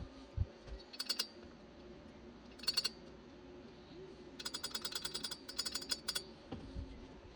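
Rapid ratcheting clicks in three short bursts, the longest near the middle, from a hand-worked ratchet mechanism; a couple of dull knocks near the start and near the end.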